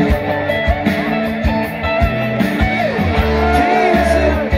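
Rock band playing live: electric guitars and bass over a steady drum beat.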